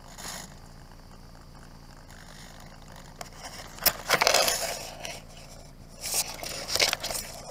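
Handling noise on the model biplane's onboard camera: a sharp click about four seconds in, then about a second of scraping and rustling as the foam airframe is picked up and tilted, and more bursts of scraping near the end. No motor is running.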